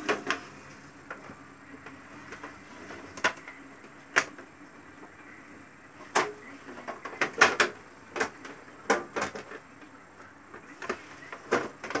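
Thin aluminium refrigerator evaporator plate being handled and bent by hand: irregular sharp clicks and knocks of the metal sheet, coming thickest about halfway through.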